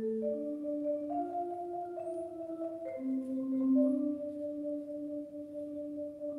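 Solo concert marimba playing slow, sustained notes in two or three parts, moving to new pitches about once a second.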